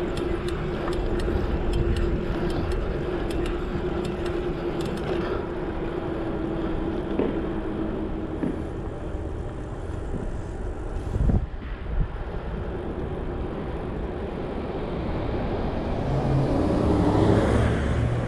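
Wind and rolling road noise from a bicycle being ridden, recorded close to the handlebars, with a steady hum through the first part and two short bumps a little past the middle.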